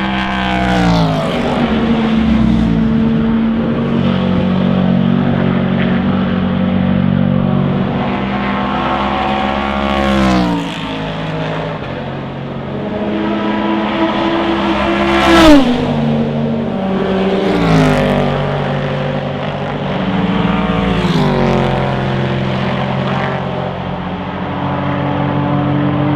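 Racing cars at full speed on track, led by the Aston Martin V8 Vantage GTE's V8 engine. About five pass-bys, each falling sharply in pitch as a car goes past, the loudest about halfway through.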